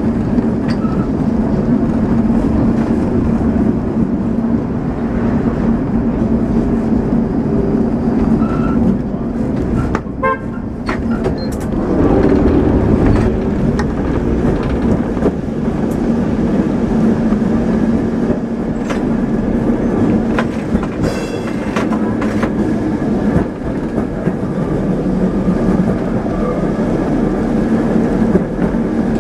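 A Lisbon tram on route 28 running along its rails, heard from on board: a steady motor hum over the rattle of the car and its wheels on the track, with a few short clicks.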